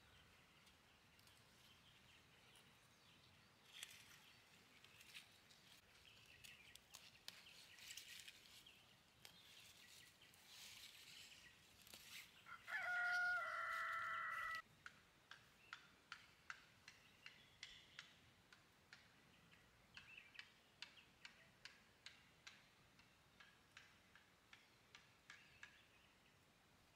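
A rooster crows once, a single call about two seconds long, midway through; it is the loudest sound. The rest is faint rural quiet, with a run of light clicks, about two a second, in the second half.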